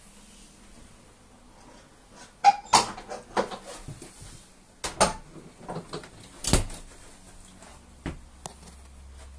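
Irregular knocks and clicks, about half a dozen, the loudest about two and a half, five and six and a half seconds in, over a low steady background hum.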